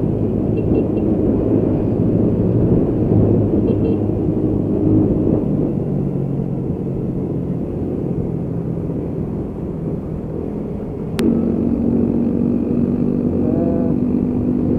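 Motorcycle engine running while riding, with wind rumbling on the camera microphone. About eleven seconds in there is a sharp click, and the engine note changes and grows louder, then holds steady.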